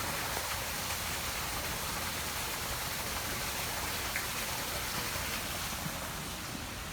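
Steady rushing-water noise, an even hiss of falling water like rain or a waterfall, holding at one level.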